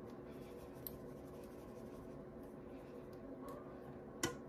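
Thick ube corn pudding being spread in an aluminium foil tray: soft scraping and rubbing, with one sharp tap about four seconds in.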